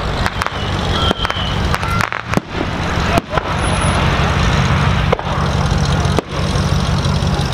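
A vehicle engine idling steadily, a low even rumble, with a few faint sharp pops from aerial fireworks; the sound drops out briefly several times.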